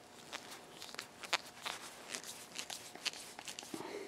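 Screwdriver turning a small screw through a sheet-metal flange collar into a disc: a run of irregular light clicks and ticks, with a brief squeak near the end.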